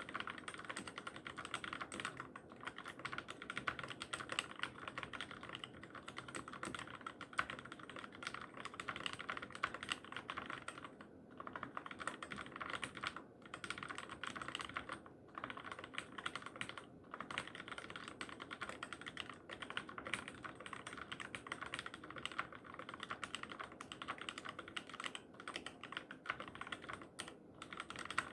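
Continuous fast typing on a Keychron K6 mechanical keyboard with lubed and filmed Cherry MX Black linear switches, a dense run of key clacks with a few brief pauses.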